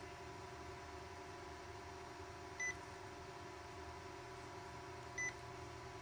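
Two short, high single-tone beeps about two and a half seconds apart from the IBM PC110's speaker as its BIOS setup menu is stepped through. Under them runs a faint steady electronic hum.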